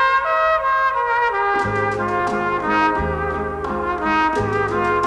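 Instrumental background music: a sustained melody line, joined about a second and a half in by a bass line and a regular beat.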